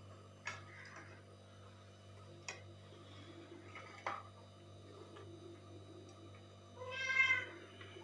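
A cat meowing once, one long high call near the end. Earlier there are three sharp clicks, like dishes or cutlery being handled during a meal.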